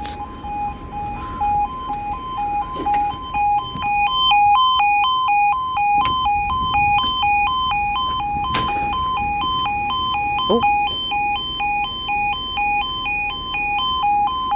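Railway level crossing yodel alarm sounding continuously: two tones alternating about twice a second, growing louder with higher tones added about four seconds in. A single knock about eight and a half seconds in.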